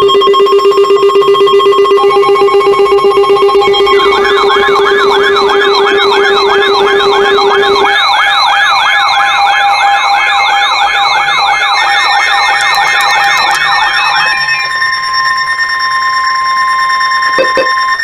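Electronic emergency alert tones leading into a severe thunderstorm warning broadcast. Several tones are layered: a steady low tone, then a fast up-and-down warbling siren tone that starts about four seconds in, then steady higher tones near the end, and the whole sound cuts off abruptly.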